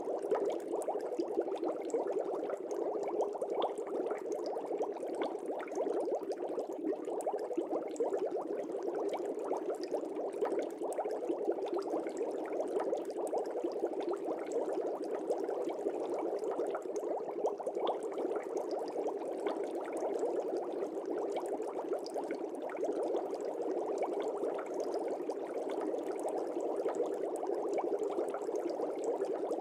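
Air bubbles in a fish tank aquarium, bubbling steadily and densely without a break.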